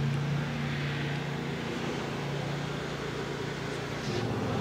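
A lawn mower's engine running steadily, a low even hum.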